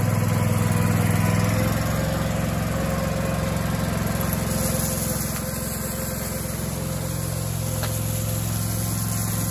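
Toro Dingo TX compact utility loader's engine running steadily under load, easing slightly about two seconds in.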